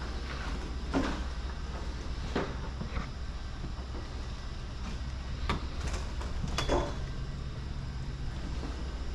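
A few scattered short knocks and clicks over a steady low hum.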